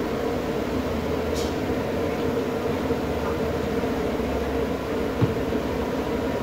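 A steady, even drone with a constant low hum, like running machinery, with one short tap about five seconds in.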